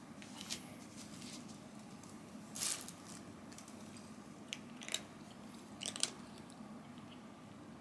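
Ragdoll cat chewing its food, with a handful of short, irregular crunches.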